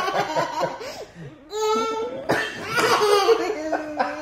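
A man and a toddler laughing together, in bursts with a brief lull a little after a second in.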